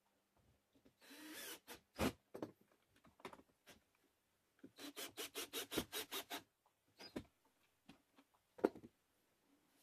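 Plywood pieces rubbing and knocking against each other as they are handled and fitted by hand: a short scrape about a second in, a sharp knock, then a quick run of rubbing strokes, about six a second, and another knock near the end.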